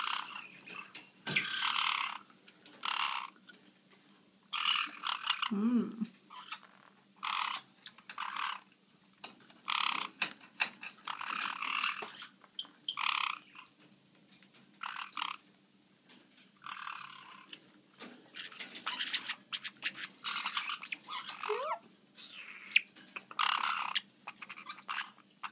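Black-headed caiques giving short raspy calls, one every second or so.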